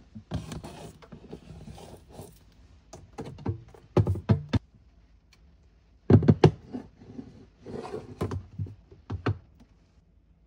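Plastic food storage containers being handled and set onto a refrigerator shelf: a string of knocks and clicks, with the loudest clusters about four seconds in and again after six seconds.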